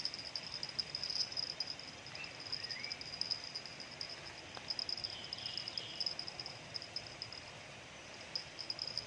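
An insect, cricket-like, chirping in a high, rapidly pulsing trill that breaks off and resumes, with a few short bird chirps in between.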